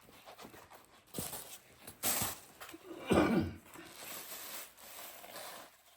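Rustling and a few short knocks of packing material being handled, as padding layers are laid over egg trays for packing in a box.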